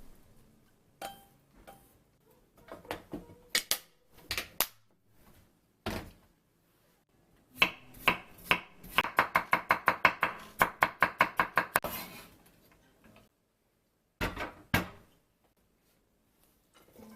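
Knife chopping on a cutting board: a run of quick, even strokes, about four a second, in the middle. Scattered knocks and clinks of kitchenware come before it, and two more knocks follow near the end.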